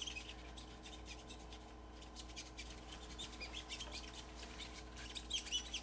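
ChloraPrep antiseptic applicator's wet sponge scrubbing back and forth on a plastic manikin's skin: a fast run of faint rubbing strokes with small squeaks, the squeaks sharpest near the end.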